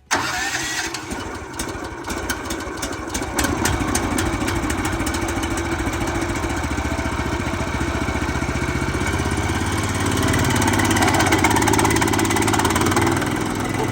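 Wood chipper's gasoline engine just started, running on choke with the throttle at its low setting: uneven for the first few seconds, then settling into a steady run. It grows a little louder for a few seconds about ten seconds in.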